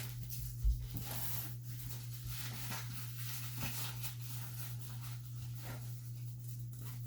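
Faint rustling and handling sounds of playpen parts and packaging being worked, with a low thump about a second in, over a steady low electrical hum.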